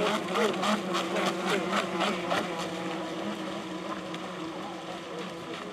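Several Club 500 electric model racing boats running on the water, their motors giving a steady hum with wavering whines over it. A rapid run of sharp clicks sounds over them and thins out about halfway through.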